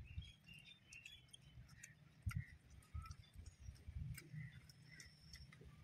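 Near silence with faint eating sounds: soft low thumps and scattered small clicks as parotta is torn by hand and chewed.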